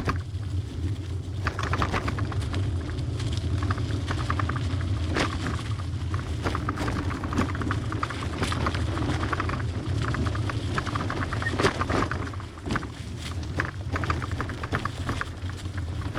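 Trek hybrid bicycle riding over a rough dirt trail: frame, chain and parts rattling and clicking over bumps, tyres on dirt, under a steady rumble of wind on the microphone.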